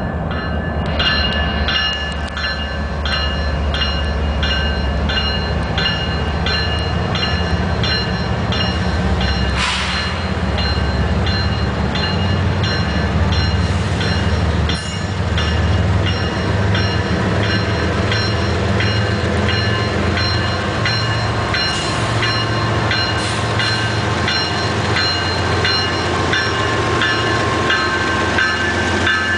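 A GE ES44AC diesel locomotive, Canadian Pacific 8828, runs with a steady low engine drone as it leads a freight train slowly past. A bell rings steadily about twice a second over the engine.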